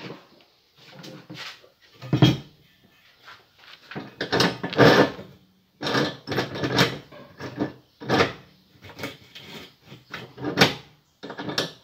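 Irregular metal clanks and knocks of steel stock being set into the vise of a 14-inch abrasive cut-off saw and the clamp being worked, with short gaps between them; the saw's motor is not running.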